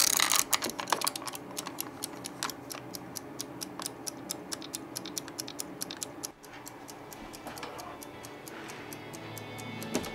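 Mechanical wind-up kitchen timer being turned by hand: a quick run of sharp clicks from its dial, thinning out after about six seconds.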